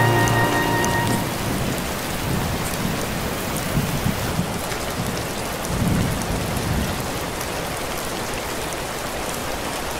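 Steady rain falling on a hard, wet surface, with low rumbles of thunder swelling around four and six seconds in. Saxophone music fades out about a second in.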